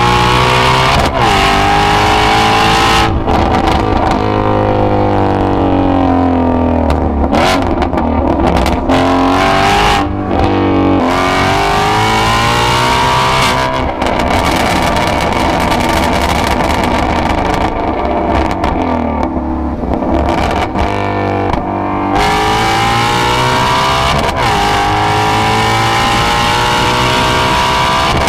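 Ford Shelby GT350's 5.2-litre flat-plane-crank V8 running loud through its exhaust, the revs climbing and falling again several times.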